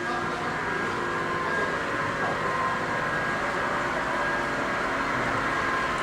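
Steady mechanical running noise with a faint steady whine.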